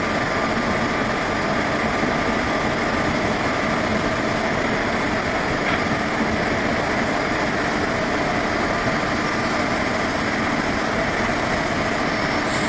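Express train's LHB coaches rolling past on the adjacent track: a steady rumble and rush of wheels on rail, with a faint thin whine through most of it.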